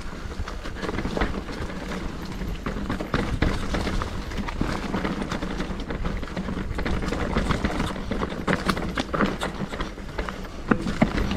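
Mountain bike riding fast down a rough, rocky trail: tyres rolling over stones and the bike rattling and knocking with constant irregular impacts.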